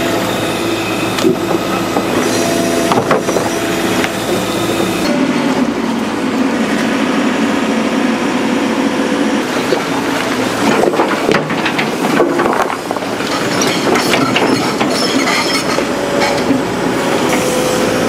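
Hydraulic excavator working: engine and hydraulics running steadily, with metallic squeals, clanks and knocks as the machine moves and handles stone and soil. The running note shifts about five seconds in.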